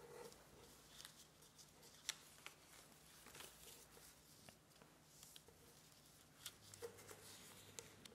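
Faint rustling and crinkling of a sheet of origami paper being folded and creased by hand, with scattered soft ticks and taps, the sharpest about two seconds in and several more near the end.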